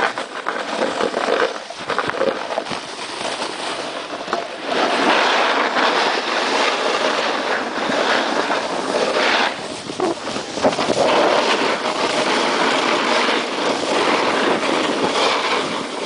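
Snowboard sliding and carving down groomed packed snow, a continuous scraping hiss that grows louder about four and a half seconds in and eases briefly near ten seconds.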